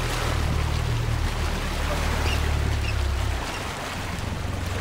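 Wind and water noise aboard a boat on open water, with a steady low rumble that falls away about three and a half seconds in.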